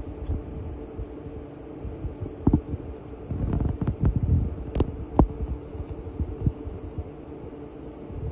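Steady low hum with low irregular thumps, busiest about three to four seconds in, and a few sharp clicks.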